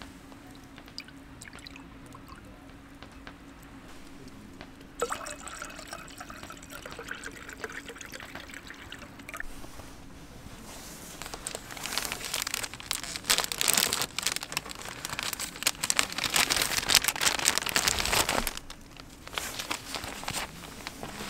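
Liquid pouring and trickling over a low steady hum; the pouring grows louder and rougher about eleven seconds in, then stops abruptly.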